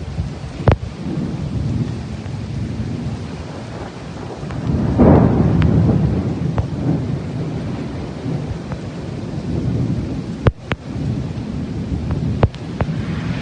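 Thunder rumbling through steady rain, swelling to its loudest about five seconds in, with a few sharp clicks.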